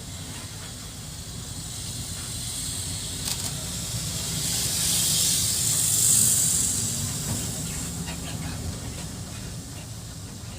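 Road traffic: a low engine rumble throughout, with a hissing rush that swells to a peak about five or six seconds in and then fades away, as of a vehicle passing close.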